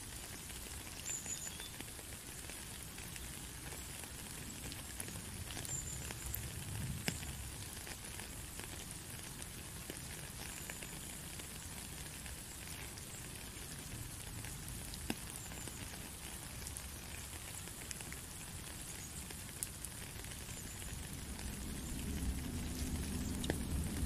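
Steady rain falling into a shallow puddle and onto a wet gravel path, a continuous patter with scattered sharper drips. A low rumble swells in near the end.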